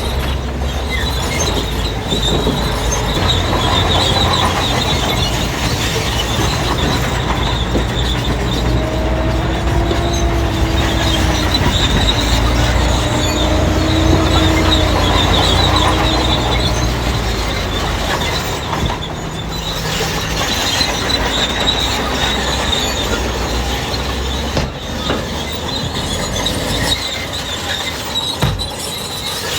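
Crawler bulldozer working, its diesel engine running under load while its steel tracks squeal steadily and clank; a wavering whine rises and falls for several seconds in the middle.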